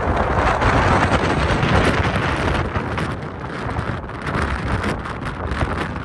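Blizzard wind gusting hard and buffeting the microphone, a low rumble under a broad rushing hiss of wind and blowing snow; the gust eases a little about halfway through.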